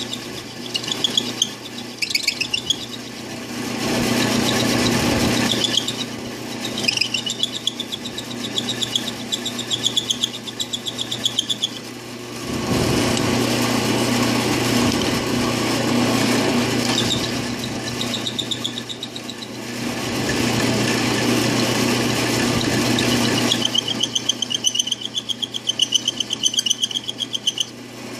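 Drill press spinning a Dremel grinding stone against the top of a steel solid-lifter bucket, grinding metal off the cup to reduce valve lash. The motor hums steadily, and in stretches the stone squeals and chatters against the steel as it is pressed on.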